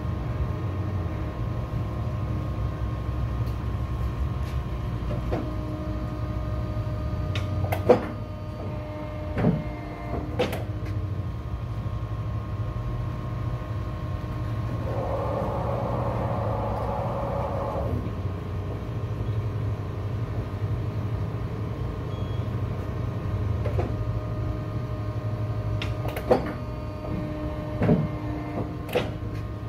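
Prism 137 54-inch guillotine paper cutter running with a steady motor hum. Sharp clunks come now and then as it is worked. A few seconds of hiss come about halfway through. Near the end the clamp and knife come down for a cut with a few heavy clunks.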